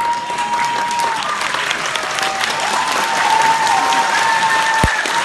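Concert audience applauding, a dense steady clapping, with a long high held tone sounding over the claps for much of the time.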